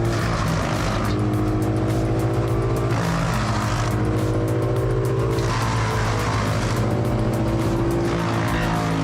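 Electronic background music with a steady pulsing beat and held synth chords that change every second or two.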